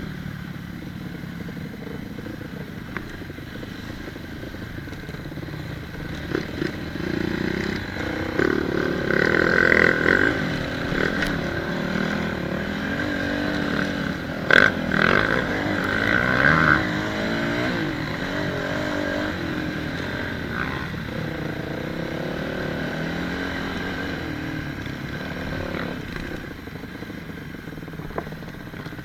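Off-road motorcycle engine running at low trail speed, the pitch rising and falling as the throttle opens and closes, with louder surges of revs about a third of the way in and around the middle. A sharp knock and some rattles come from the bike over the rough ground.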